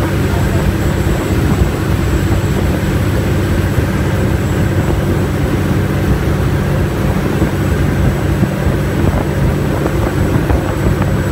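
High-speed ferry's engines running steadily at cruising speed as a low, constant drone, over the rush of water past the hull.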